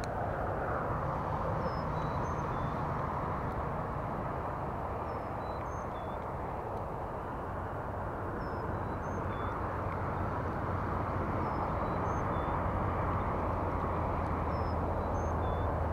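Outdoor ambience: a steady low hum and rushing noise from a distant engine or traffic, growing a little stronger near the end, with a small bird repeating a short, high-pitched phrase of a few notes about every three seconds.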